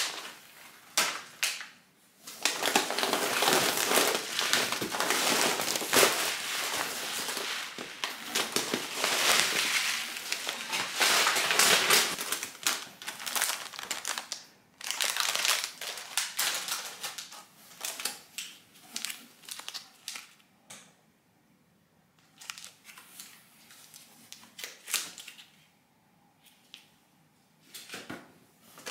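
Plastic snack packets crinkling as they are handled and lifted out of a cardboard box, in long loud stretches at first, then shorter bursts with brief pauses near the end.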